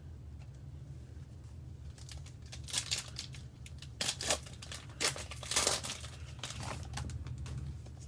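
Mosaic trading-card pack wrapper crinkling and tearing as it is opened, in irregular bursts from about two seconds in, over a steady low hum.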